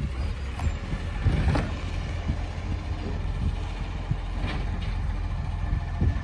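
Dennis side-loader garbage truck running at the kerb while its automated arm lifts a wheelie bin, a steady low engine rumble. Short knocks about a second and a half in and again about four and a half seconds in.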